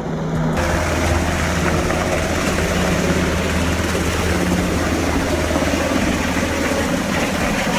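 Coast guard helicopter, a Sikorsky MH-60 Jayhawk, flying low: steady loud rotor and turbine noise over a low hum. It comes in abruptly about half a second in.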